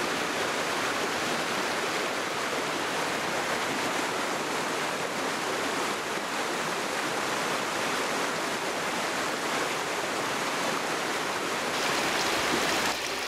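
Rapids of a fast-flowing stream rushing over rocks in strong current: a steady, even rush of water that grows a little brighter near the end.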